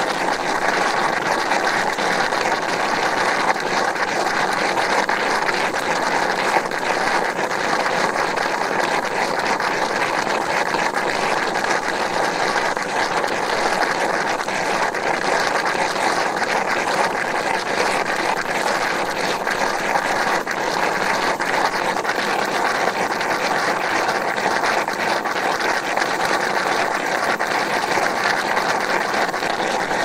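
Geothermal hot spring bubbling, recorded close: a steady, dense churn of small bubbles with a fine crackling texture.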